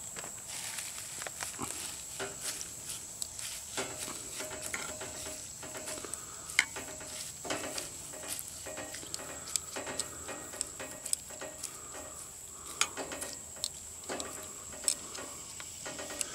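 Wire tongs stirring leafy greens in a small stainless steel pot of near-boiling water, with scattered sharp clinks of metal against the pot rim and sides.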